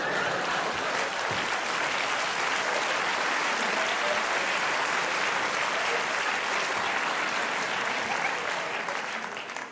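Theatre audience applauding, a dense, steady clapping that dies away near the end.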